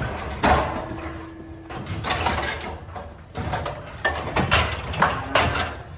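Metal clanking and rattling of cattle handling equipment: a run of irregular knocks and bangs from steel gates and chute parts being worked while calves are processed.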